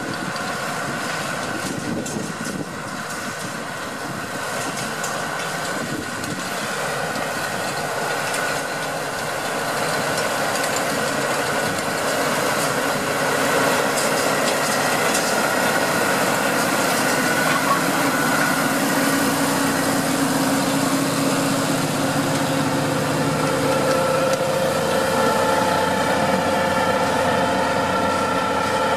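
Deutz-Fahr 6155 tractor engine running steadily under load while driving a PTO power harrow through soil, growing louder as the tractor comes closer. A higher, steadier whine takes over for the last few seconds.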